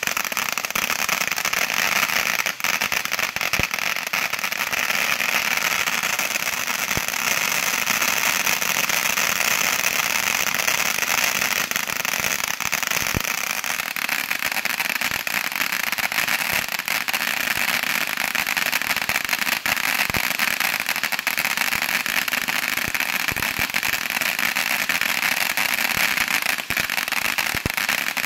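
A ground firework fountain burning: a steady hiss of spraying sparks, dotted with small crackles. The hiss changes tone about halfway through as the effect changes.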